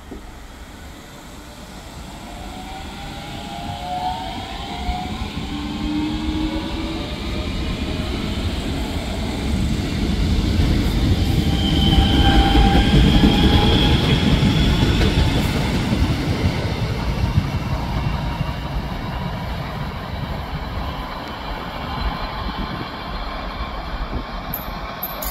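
Irish Rail 8520 class DART electric multiple unit pulling away and accelerating past: the traction motors whine in several tones that rise in pitch, over a wheel-on-rail rumble that builds to its loudest about twelve to fifteen seconds in, then fades as the train draws away.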